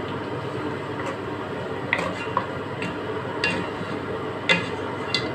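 Wooden spatula stirring pieces of lamb in a metal cooking pot, knocking and scraping against the pot in a string of irregular clicks, the loudest knock about four and a half seconds in.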